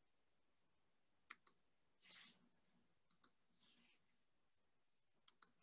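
Faint computer mouse double-clicks: three quick pairs of clicks about two seconds apart, each followed by a short soft rustle.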